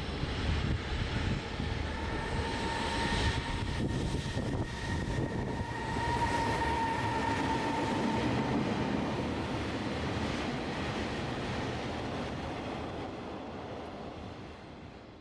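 Freight train rolling past on the rails: a dense, steady rumble of wagons, with a high steady squeal through the middle, dying away near the end.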